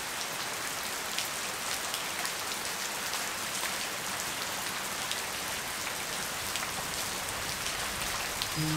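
Steady rain falling, an even hiss scattered with the ticks of individual drops hitting a surface. Music comes back in near the end.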